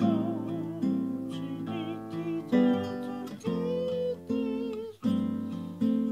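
Cutaway classical acoustic guitar played slowly, a new chord struck roughly once a second and left to ring, with a wavering melody line over the chords.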